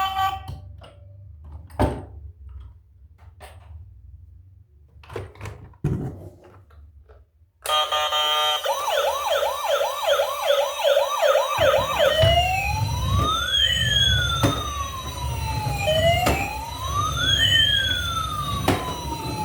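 A few scattered knocks and clicks, then about seven seconds in a toy emergency vehicle's electronic siren switches on. It plays fast, repeated rising yelps, then changes to slower up-and-down wails about twelve seconds in, with a low rumble joining underneath.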